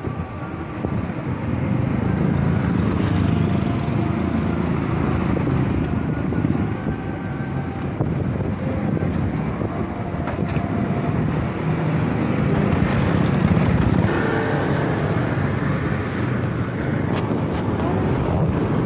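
Steady street-traffic noise with motorcycle engines running nearby, a continuous low rumble.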